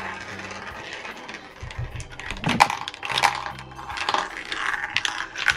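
Marbles rolling down a plastic marble-run track and tubes, an irregular run of clicks and rattles as they drop through the pieces and land in the base, busier in the second half.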